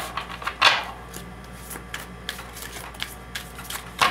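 A deck of cards being handled and shuffled by hand: a brief papery swish about half a second in, then scattered light clicks and taps of cards against each other and the deck, with a sharper tap near the end.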